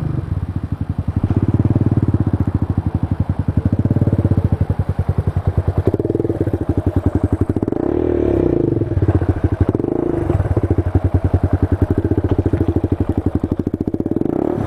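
Supermoto motorcycle engine idling, a fast, even pulsing beat that holds steady throughout.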